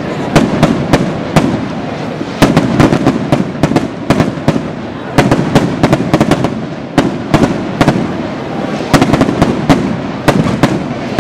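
A traca, a long chained string of firecrackers, going off in rapid, irregular loud bangs that come in runs with short pauses between them.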